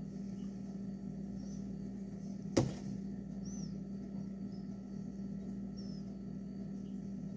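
Steady low kitchen hum, with a single sharp knock about two and a half seconds in.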